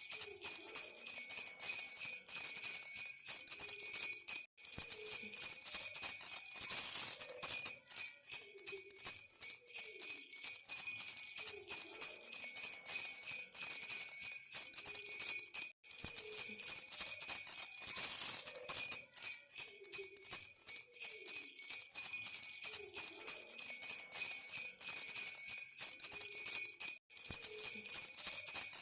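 Baby rattle with small bells, shaken steadily so that it jingles in a fast continuous stream, broken only by three very short gaps.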